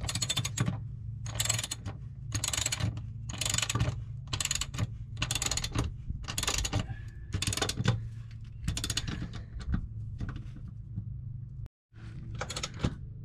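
Ratchet wrench clicking in short repeated strokes, about one a second, as a subframe connector bolt is tightened down snug. A steady low hum runs underneath.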